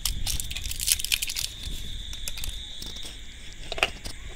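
Thin plastic battery wrapper crinkling in the hand, a quick cluster of crinkles in the first second and a half, then quieter handling and a couple of sharp clicks near the end. A faint steady high whine runs underneath.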